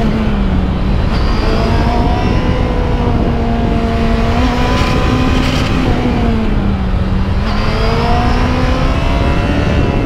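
Motorcycle engine running at steady, fairly high revs while riding, its pitch easing off about two-thirds of the way through and climbing again, over heavy wind rush.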